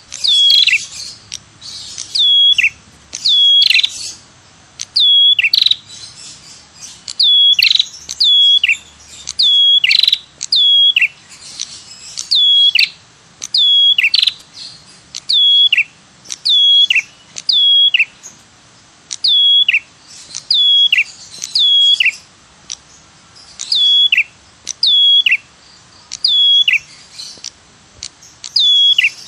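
Bird-lure recording of the prenjak kepala merah ('red-headed prenjak'), its 'tirr tiirr' call repeated over and over: short high notes that drop steeply in pitch, mostly in pairs about every second and a half, some with a raspy trill around them.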